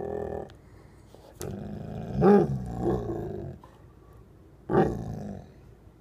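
Bullmastiff "talking": low, drawn-out grumbling growl-moans, one fading out just after the start, a longer one starting about a second and a half in, and a shorter one near the end.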